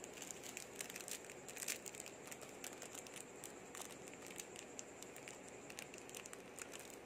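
Faint plastic crinkling with scattered light crackles and ticks, busiest in the first two seconds, while salt is being added to a flaked-fish and vegetable filling.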